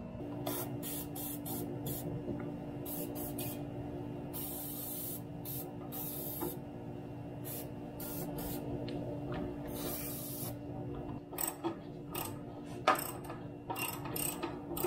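Aerosol can of Liquid Wrench penetrating oil sprayed in several short hissing bursts onto exhaust manifold heat-shield bolts, then quick clicking of a socket ratchet near the end.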